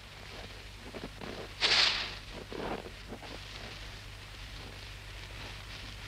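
Rustling of hay from a moving haystack: one louder swishing rustle a little under two seconds in, then a few fainter rustles, over a faint low hum.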